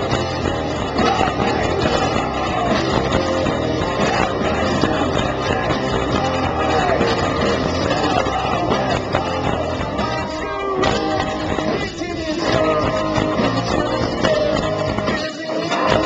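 Rock band playing live: electric guitar, bass guitar and drums, with a man singing at the microphone, heard from the crowd over the stage PA.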